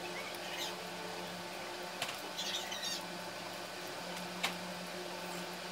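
Scissors snipping the ragged edges off a small piece of layered corrugated cardboard: a few short crisp snips and scrapes, spaced a second or two apart. A faint steady hum runs underneath.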